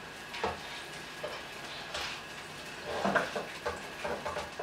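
Chicken pieces being stirred in a frying pan on a gas stove: a utensil scrapes and knocks against the pan several times over a faint sizzle.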